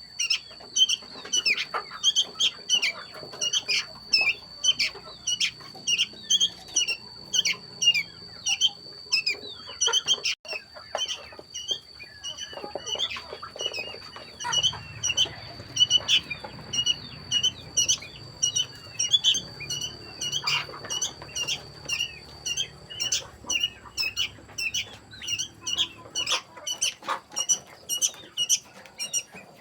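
Many chicks peeping continuously, several short, high, falling peeps a second. A steady high-pitched whine runs underneath and stops about three quarters of the way through.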